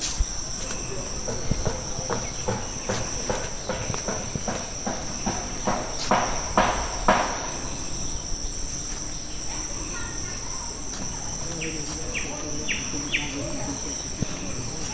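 Steady high-pitched insect chorus, with evenly paced footsteps on a path through the first half and a few short high chirps near the end.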